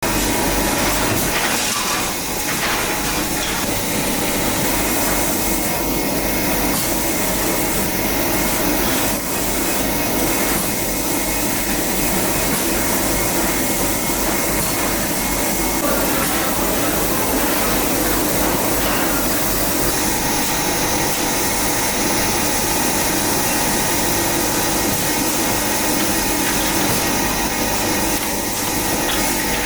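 Steady whirring machinery noise with several constant hums, unbroken throughout.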